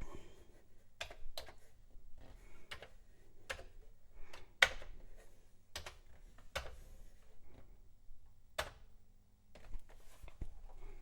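Keys being pressed on a Commodore 64 keyboard: a dozen or so irregular clacks, one every second or so, to move through a file browser list. A faint steady low hum runs underneath.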